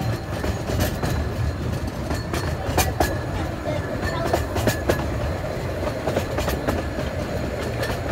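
Carriage of a 15-inch-gauge railway running along the track: a steady low rumble broken by irregular clicks of the wheels over the rail joints.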